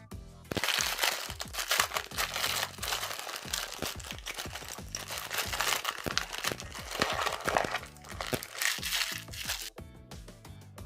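Close-miked crunching and crinkling of dessert food being eaten, a dense run of crackles starting about half a second in and stopping near the end, over background music.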